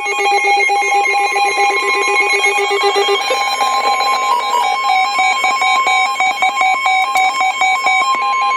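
Several emergency alert tones sounding over one another: rapidly pulsing electronic beeps and warbles like phone and receiver alert signals. About three seconds in, a steady weather-radio warning alarm tone joins them and holds.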